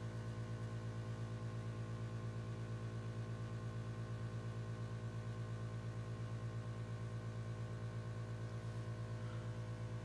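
Home heating system running: a steady drone with many overtones and a fast, even pulsing.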